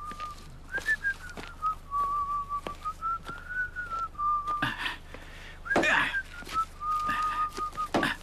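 A man whistling a tune through his lips: a single clear note gliding up and down as a melody with short breaks. A few short scraping thuds come in between.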